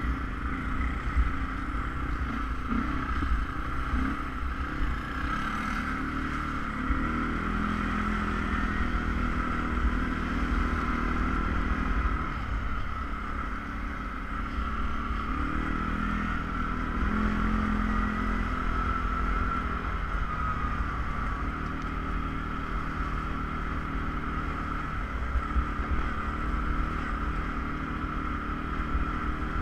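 ATV engine running under way, its pitch rising and falling with the throttle, over a steady higher whine and low rumble.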